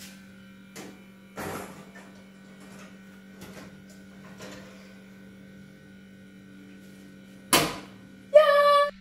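Light knocks and clatters of cake tins going into an oven over a steady electrical hum, then the oven door shut with one loud bang near the end.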